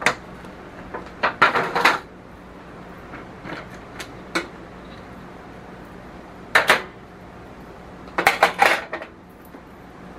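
Metal cookware being handled: a stovetop smoker pot and its rack knocked and set in place, in several short bursts of clinks and clanks.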